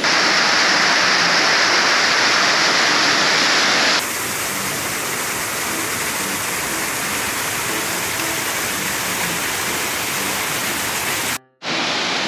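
Steady rush of a small waterfall fed by a narrow mountain stream. About four seconds in the sound changes abruptly to a brighter, hissier rush, and it drops out for a moment near the end.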